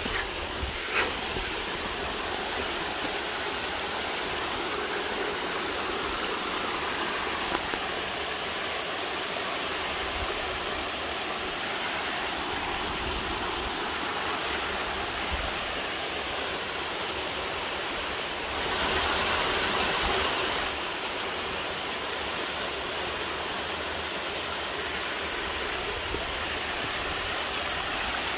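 Mountain creek cascading over rocks in small falls, a steady rush of water that grows louder for about two seconds around two-thirds of the way through.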